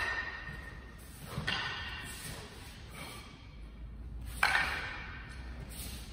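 A sansetsukon (three-section wooden staff joined by metal chain links) being swung and caught: three sharp clacks, right at the start, about a second and a half in, and about four and a half seconds in. Each clack leaves a short metallic ringing that fades over about a second.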